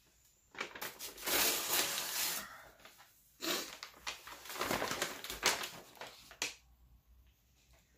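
Packaging crinkling and rustling as a mail package is handled and opened, in two long spells of irregular crackle, then a short sharp click near the end.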